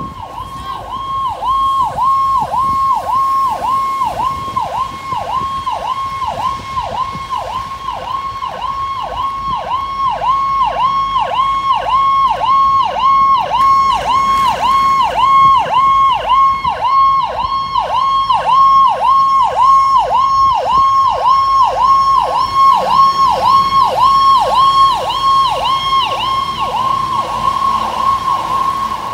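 Fire engine siren cycling fast, its pitch dipping and snapping back up about one and a half times a second, growing louder as the truck approaches.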